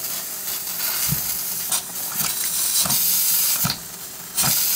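Steam hissing from a PM Research 2A model steam engine and its small electric boiler, with about six irregular soft thumps as the flywheel is flicked by hand. The engine fails to catch and keep running.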